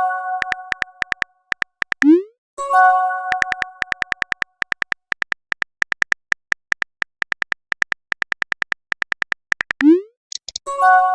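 Texting-app sound effects: quick keyboard-tap clicks, several a second, as a message is typed, broken twice, about two seconds in and again near the end, by a short rising blip and then a bright, fading chime of several tones as a message goes out.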